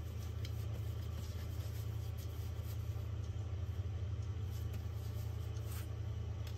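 Steady low hum of a running motor or appliance, with a few faint soft taps from hands handling a ball of bread dough.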